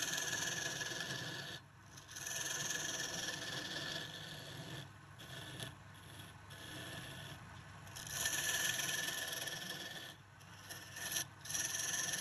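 Hand-held turning chisel cutting into a spinning wooden blank on a lathe: a steady scraping hiss of wood being shaved, which stops briefly several times and starts again.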